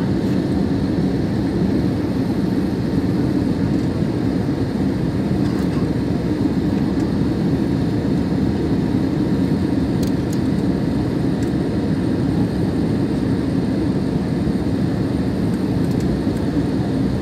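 Steady airliner cabin noise in flight: an even, unbroken low rumble of engines and airflow heard from inside the cabin.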